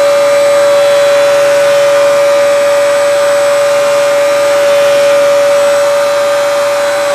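Vacuum cleaner running steadily, drawing air through a Flowbee vacuum haircutter whose electric clippers are also running, with one steady whining tone over a rush of air.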